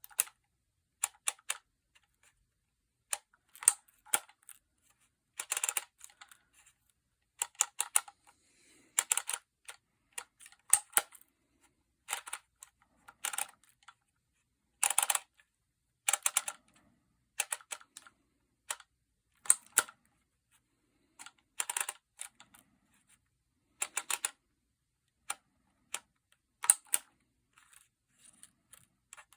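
Phomemo E975 handheld embossing label maker pressing letters into plastic label tape, worked quickly: a string of sharp clacks about one a second, some coming in quick pairs, with fainter ticks in between.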